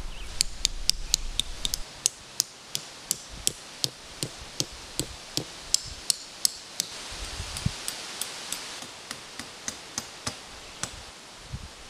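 Tent stakes being hammered into the ground: a long run of sharp, ringing taps, about three a second.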